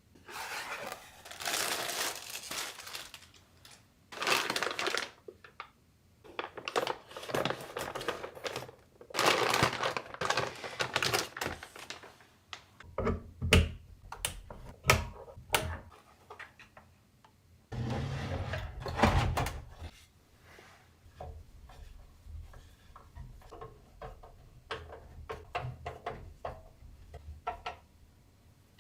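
Computer parts and their packaging being handled: rustling bursts, then sharp clicks and knocks, a heavier thud, and small ticks and taps near the end.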